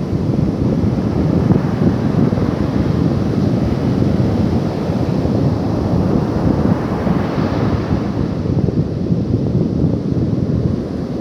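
Wind buffeting the microphone in a loud, steady low rumble, swelling and brightening about seven seconds in.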